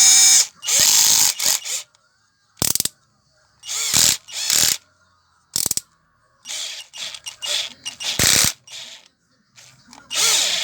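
Hummer PLI12 cordless drill/driver, freshly repaired, run in a series of short bursts of about half a second to a second each, with a ratcheting clatter as it is tested under load for torque.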